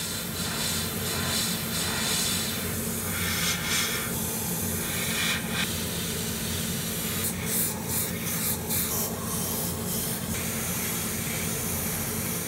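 Airbrush spraying paint, its hiss swelling in several short bursts over a steady low hum.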